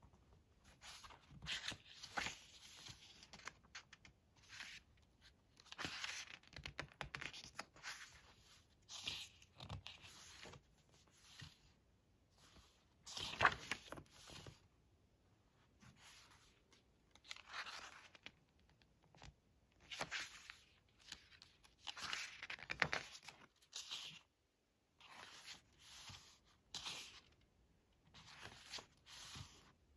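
Pages of a hardcover photobook being turned one after another, each turn a short paper rustle, roughly every one to two seconds.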